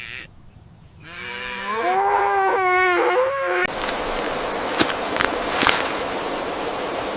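A farm animal's long, drawn-out call starting about a second in, wavering in pitch with a short break near its end. Then a steady rushing noise takes over, with a few faint clicks in it.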